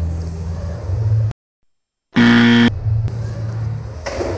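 A short, loud buzzer tone of about half a second, about two seconds in, right after a brief cut to dead silence. Before and after it there is a steady low rumble of background noise.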